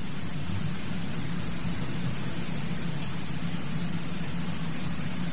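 Steady background hiss with a low hum from an old tape recording of a lecture. There are no voices and nothing changes.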